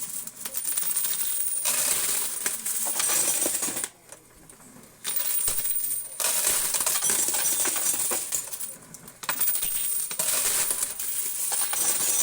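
A stream of quarters pouring and clinking together in a dense metallic jingle. It breaks off briefly twice, about four seconds in and again near nine seconds.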